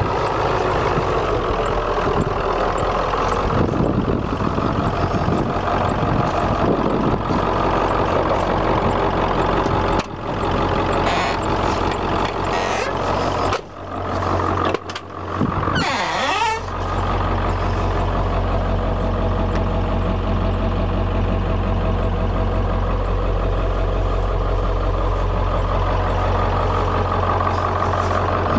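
Ford Power Stroke 7.3-litre turbo-diesel V8 idling steadily. About halfway through, the sound breaks up with a few clicks and a rising creak as the cab door is opened. After that the engine is a steady low hum heard from the cab.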